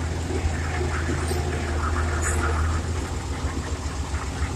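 Tractor engine running steadily while the tractor is driven to park, its low note easing a little about three seconds in.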